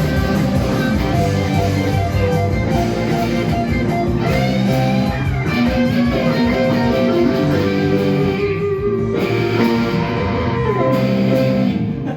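Music led by electric guitar, playing a run of changing notes.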